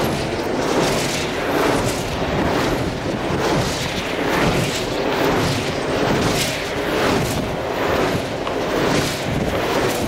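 Strong wind buffeting the camera microphone, a loud rushing noise that swells and dips in gusts.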